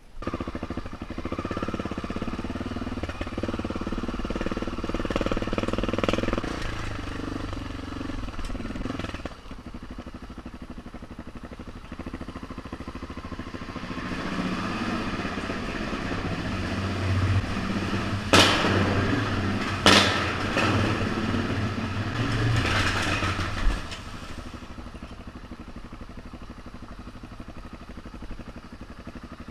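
BMW F650GS motorcycle engine running while riding rough ground, louder in two long stretches and easing off in between. Two sharp knocks about a second and a half apart come about two-thirds of the way through.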